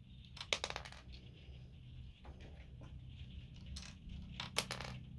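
Plastic Lego pieces clicking and rattling as they are handled, in two quick clusters of clicks: one about half a second in and one near the end.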